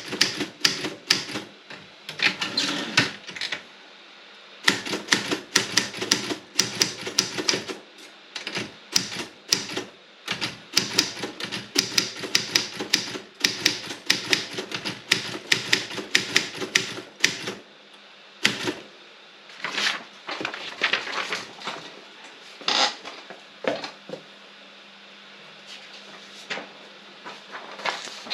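Robotron 24 typewriter being typed on: runs of quick, sharp key strikes with short pauses, the strikes thinning out to scattered single clicks about two-thirds of the way through before typing picks up again near the end.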